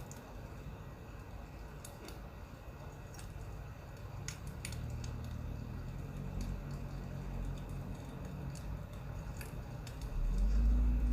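Crackling wood fire: scattered small pops and clicks over a low hum that builds from about four seconds in and turns into a loud low rumble near the end.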